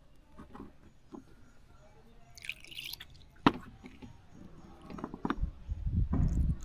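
A plastic oral dosing syringe drawing up dissolved medicine, with small liquid sounds and plastic clicks. There is a short hissing slurp about two and a half seconds in and a sharp click a second later. Low handling bumps come near the end.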